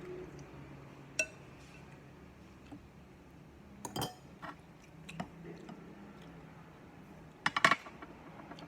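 Scattered sharp clinks and knocks of hard objects, like dishes or utensils being handled, one ringing briefly about a second in. The loudest is a quick run of clinks near the end, over a faint low steady hum.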